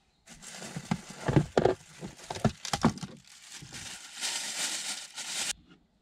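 Crinkling and rustling of packaging being handled, with several sharp knocks in the first half and a steady rustle that stops suddenly near the end.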